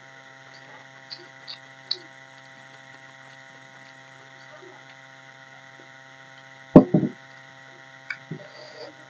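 Eating sounds by hand: a few faint mouth clicks while chewing rice, over a steady background hum. About two-thirds of the way through comes a single loud knock on the table, with a short rattle after it.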